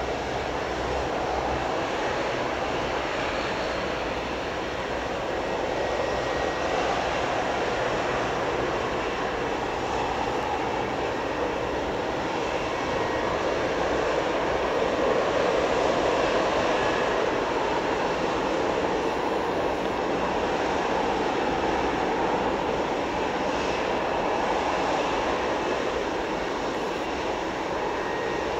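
Airliner engines running, a steady rush that swells gently about halfway through.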